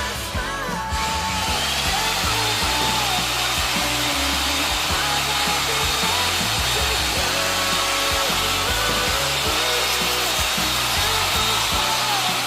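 Background music over a steady whirring electric motor that starts about a second in and runs on evenly.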